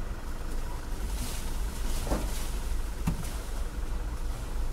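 Goods truck's engine running with a steady low hum while driving slowly, with two faint brief sounds about two and three seconds in.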